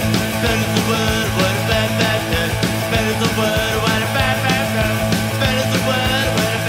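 Background rock music with a steady drumbeat.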